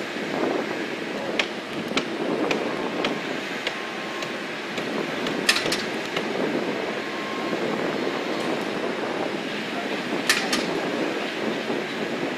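Footballs slapping into hands as they are caught and thrown: about ten sharp smacks at uneven intervals, a couple in quick pairs, over a steady rushing background.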